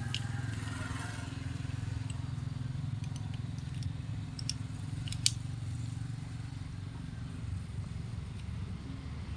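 A few light metallic clicks and taps as transmission gear shafts are fitted into a motorcycle engine crankcase, the sharpest about five seconds in, over a steady low hum.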